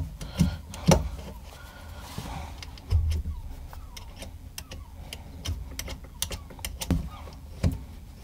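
Scattered clicks and knocks of hands, tools and parts being handled in a cramped boat locker, with a dull thump about three seconds in.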